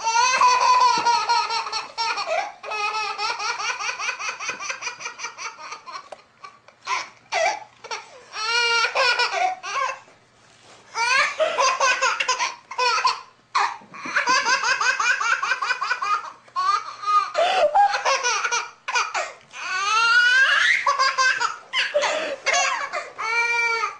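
A baby laughing hard and high-pitched, in several long runs of rapid laugh pulses with short catches of breath between them.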